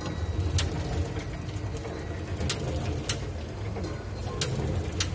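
Horizontal packaging machine running, its 750 W NMRV worm gear motors and chain-and-sprocket drives giving a steady low hum that pulses, with a sharp click a few times.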